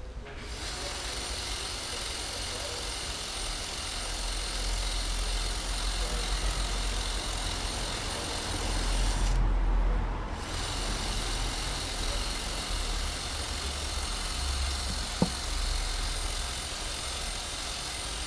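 Street noise: a steady hiss with a low rumble of traffic that swells about nine seconds in, and a single sharp click about fifteen seconds in.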